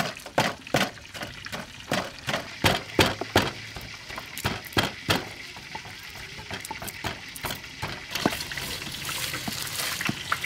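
Wooden pestle pounding chili, sugar and salt in a clay mortar, about two to three strikes a second, stopping about five seconds in. A steady hiss rises near the end.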